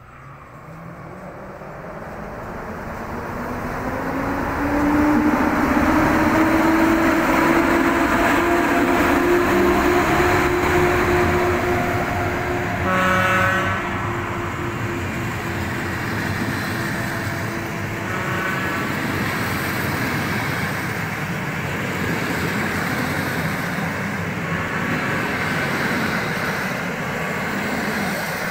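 An EP07 electric locomotive pulls a passenger train away from the platform, growing louder as it comes past, with a whine from its motors that rises in pitch and then holds. The carriages then roll past in a steady rumble. About halfway through there is a brief high tone.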